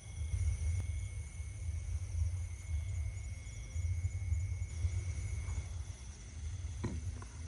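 Wind buffeting the microphone as an uneven low rumble, with insects chirping steadily in high thin tones, one of them pulsing.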